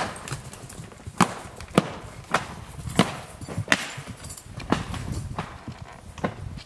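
Footsteps on dry dirt ground, a regular walking pace of about one and a half to two steps a second.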